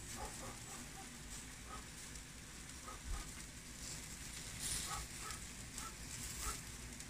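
Lula kebab and stuffed mushrooms on skewers sizzling over hot charcoal in a mangal, with a soft hiss that swells now and then. Short bird calls sound in the background.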